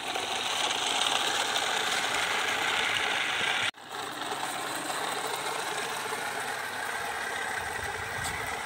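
Small battery-powered DC motor of a homemade cardboard toy truck whirring steadily through its drive as the truck runs along concrete on bottle-cap wheels. The sound cuts out for an instant a little before halfway, then carries on.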